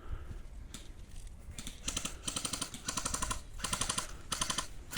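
Airsoft rifle firing a string of short full-auto bursts, each a rapid rattle of shots under half a second long, starting about two seconds in.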